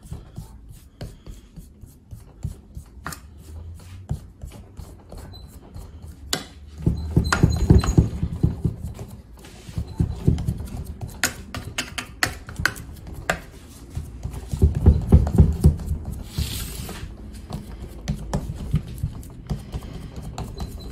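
A spoon pressing and patting semolina dough into a metal baking tray: a run of soft low thuds and scraping, with sharp clicks where the spoon knocks the tray. Two louder spells of thumping come around the middle and again later on.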